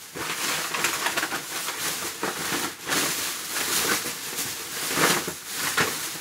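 A large clear plastic bag rustling and crinkling as it is handled, with many irregular sharp crackles.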